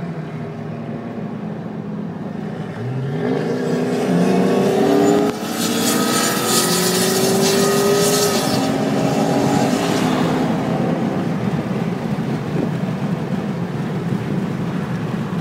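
Car engines at full throttle accelerating on a highway, heard from a following car. The engine note climbs, drops suddenly at a gear change about five seconds in, then climbs again, with loud rushing wind noise while the speed builds.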